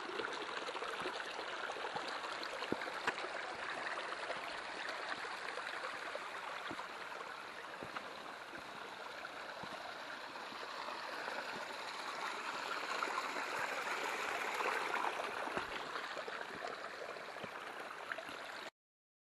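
Snowmelt water running and trickling over the rocks of a stony trail that has turned into a small stream, with a few faint clicks. The sound stops abruptly near the end.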